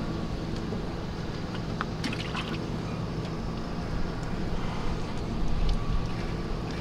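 Fillet knife working through winter flounder on a fillet table, with a few sharp scrapes and taps of the blade about two seconds in. Under it a steady low hum, with a low gust-like surge about five and a half seconds in.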